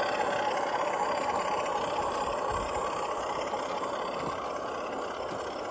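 G-scale model diesel shunting locomotive running along the track with a train of loaded wagons: a steady mechanical running noise that slowly gets a little quieter.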